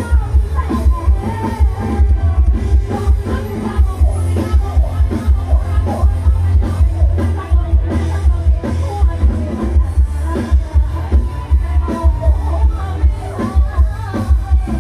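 Loud amplified dance music from a live band on a Thai mobile stage truck: a heavy, steady bass beat with drums, electric bass, guitar and keyboard, and female vocalists singing over it.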